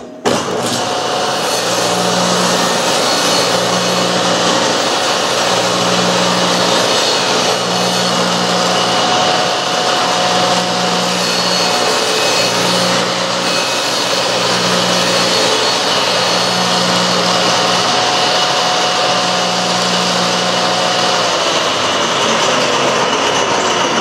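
Table saw starting up abruptly and cutting a groove along a wooden strip, running steadily with a low hum that swells about every second and a half. About 21 seconds in, its pitch begins to fall as the blade winds down.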